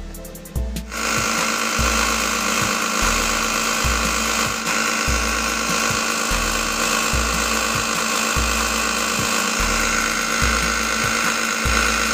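Small bench belt sander running at a steady speed, a whining motor hum that comes in suddenly about a second in, as small wooden parts are held against the belt. Background music with a steady bass beat runs underneath.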